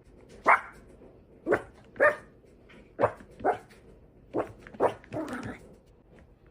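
A dog barking: about seven short, sharp barks, some in quick pairs, then a longer, softer call a little after five seconds in.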